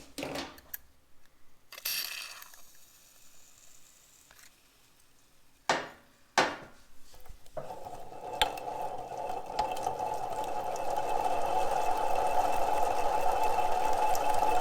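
A few light metal clicks and two sharp knocks, then from about halfway a steady mechanical whir that grows slightly louder.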